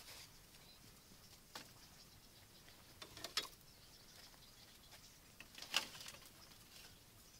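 Faint, sparse rustles and light knocks of woven bamboo baskets being handled: a few short clicks a second or two apart, the loudest near the end as a basket is set down on a bamboo slat table.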